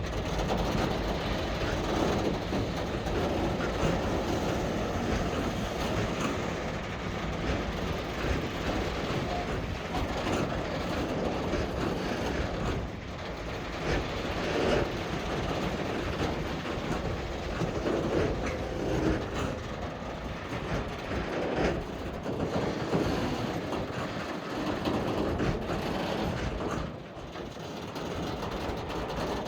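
SM42 diesel shunting locomotive moving a rake of Eas open coal wagons, the wagons' wheels clacking irregularly over the rail joints with the diesel engine running underneath.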